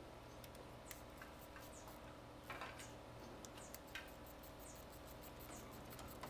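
Faint, sparse metallic clicks of a screwdriver and spanner on the rocker arms and adjusting screws of a Mercedes-Benz OM501 diesel cylinder head as the valves are set, over a low steady workshop hum. Short faint high chirps come now and then.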